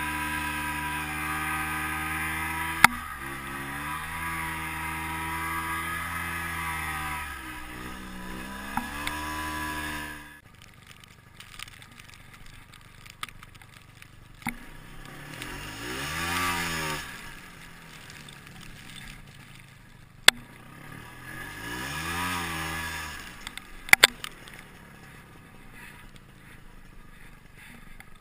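Ski-Doo Tundra snowmobile engine running under throttle in deep powder, its pitch wavering, then dropping to a low idle about ten seconds in as the sled bogs down and gets stuck. While it is stuck, the engine is revved up and back down twice, with a few sharp knocks along the way.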